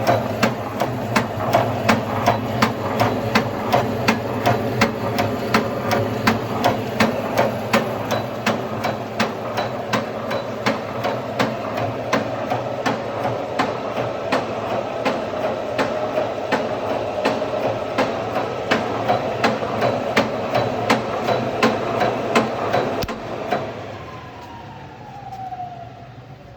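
Hilgeland PN4SP pointing machine running, with a regular sharp knock about twice a second over a steady machine hum. About 23 seconds in the knocking stops and the machine runs down with a falling whine.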